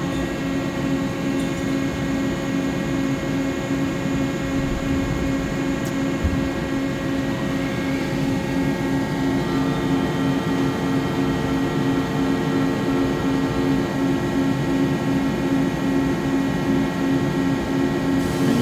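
Mori Seiki SL-154SY CNC lathe running a drilling cycle: a steady machine hum with several steady tones, with a higher whine joining about halfway through.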